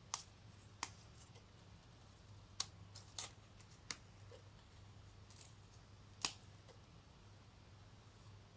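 Fresh mint leaves dropped by hand into a plastic blender jar of cucumber slices: about six faint, sharp clicks and rustles at irregular intervals over a faint low steady hum.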